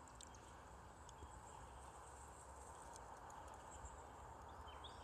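Near silence: faint outdoor background with a steady low hum, and near the end a quick run of short high chirps.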